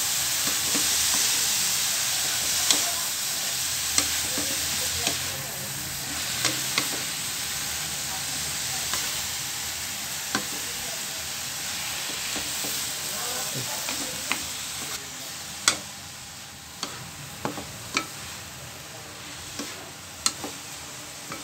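Shredded bamboo shoots and shrimp sizzling in a hot pan as they are sautéed and stirred, with sharp knocks and scrapes of a wooden spoon against the pan every second or two. The sizzle grows fainter toward the end.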